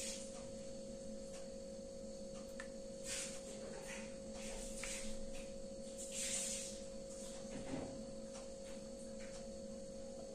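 Steady low hum in a quiet room, with a few faint soft squelches and rustles as tomato ketchup is squeezed from a plastic pouch onto a steel spoon.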